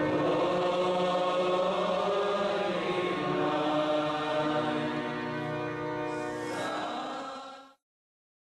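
Devotional chanting by a group of voices over steady held tones, which fades out shortly before the end.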